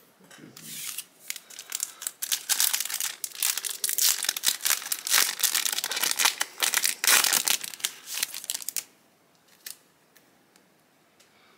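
Foil wrapper of a Yu-Gi-Oh! Ghosts From the Past booster pack being torn open and crinkled in the hands: a dense run of sharp crackling that stops about nine seconds in.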